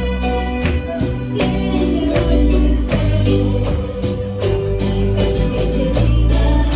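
Music with a steady beat: plucked guitar over a strong bass line, with some singing.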